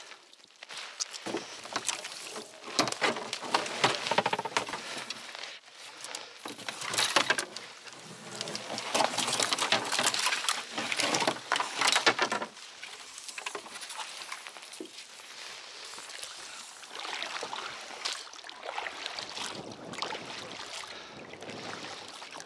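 Splashing, rustling and scraping from a small boat moving on shallow water, busiest in the first half, then a quieter, steadier wash of water.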